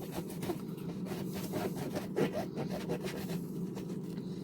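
Knife cutting into the tough core of a head of lettuce: a run of irregular crisp crackles and crunches that thins out after about three seconds, over a steady low hum.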